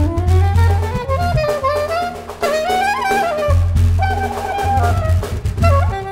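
Soprano saxophone playing a gliding, ornamented melody that climbs in pitch and then settles on long wavering notes, over deep finger-struck strokes on a skin hand drum.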